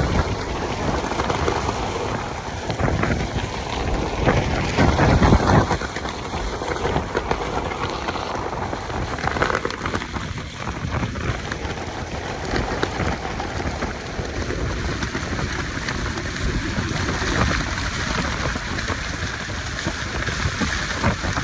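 Microburst winds with heavy rain: a continuous rush of wind and rain, surging in strong gusts that buffet the microphone, loudest about five seconds in.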